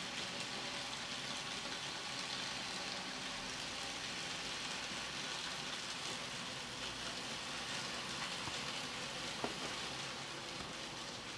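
N-gauge model freight train running on its track: a steady fine hiss of the small wheels and motor, with a single sharp click about nine and a half seconds in.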